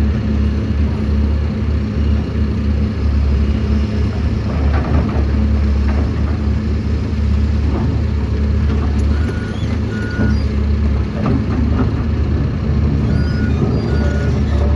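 Tata Hitachi excavator's diesel engine running steadily, with a few short knocks and two pairs of short electronic beeps in the second half.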